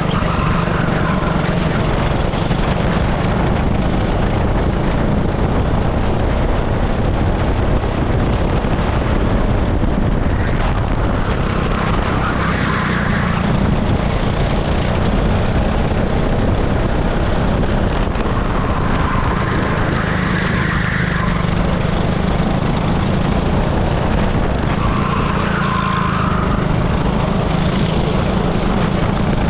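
Onboard sound of an 18 hp super kart engine running continuously at racing speed, with a steady rush of noise over the microphone. A brighter patch in the engine sound comes and goes every few seconds.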